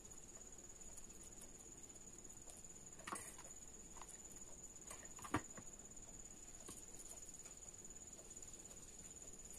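Near silence with a faint steady high-pitched whine, broken by a few soft clicks about three and five seconds in, the second the loudest, from handling glitter-foam craft pieces and a hot glue gun.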